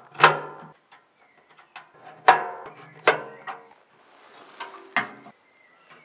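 Metal camp wood stove being handled and assembled: a series of sharp metal clanks as its parts knock together, each ringing briefly, about four loud ones among smaller knocks.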